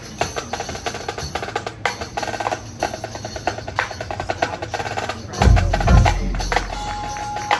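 Marching band's percussion playing a rapid passage of sharp, clicking strokes. About five and a half seconds in, a couple of heavy, deep bass hits land, and a held high note follows.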